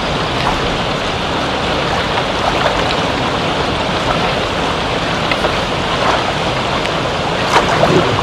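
Steady rain falling: a dense, even hiss with scattered louder drop impacts.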